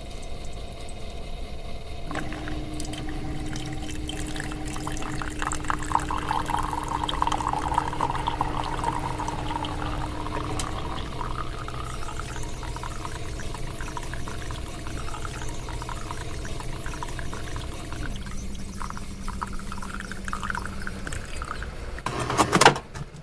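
Nespresso capsule coffee machine brewing: its pump hums steadily while coffee pours into the cup. The hum drops in pitch about ten seconds in and again near the end. The run ends with a loud clack, then silence.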